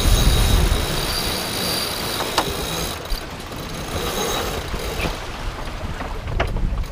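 Sailboat sheet winch being cranked with a winch handle under load: a high squeal from the line and drum, with a few sharp clicks, over wind noise on the microphone.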